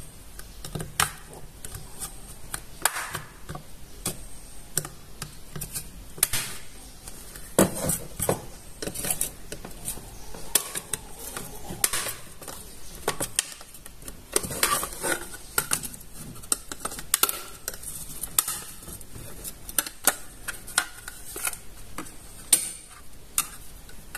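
Irregular plastic and metal clicks and taps from a white plastic Tenda F3 router case being handled and pried apart at its seam with a metal pry tool, the snap-fit shell being levered open.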